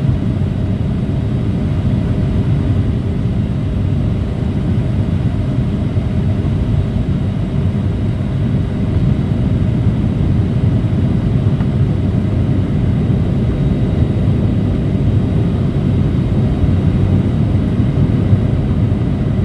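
Airliner cabin noise in flight: a steady low rumble of engines and airflow, heard inside the cabin, with a faint steady high whine over it.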